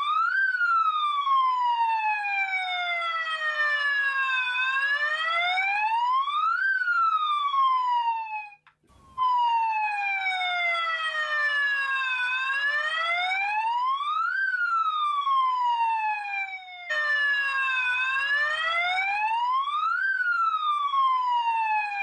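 A loudspeaker playing a wailing, siren-like tone with many overtones that glides up and down in pitch, rising quickly to its peak and falling away more slowly. The tone cuts off and starts again twice.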